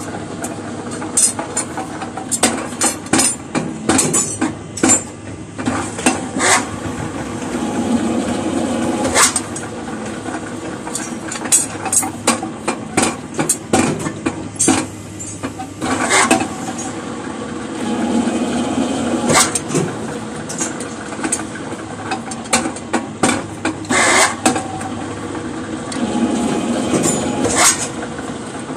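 Electric rebar bending machine running with a steady hum while its turntable bends ribbed steel bars into stirrups, with many sharp metallic clanks of the bars knocking against the steel table and bending pins.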